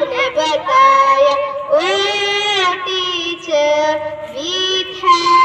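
A child singing a song in a high voice, holding long notes that slide between pitches, with no clear instrumental backing.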